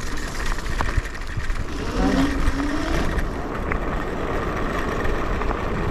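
Electric scooter rolling over rough, muddy ground, with wind rumbling on the microphone and a faint steady whine; a brief faint voice about two seconds in.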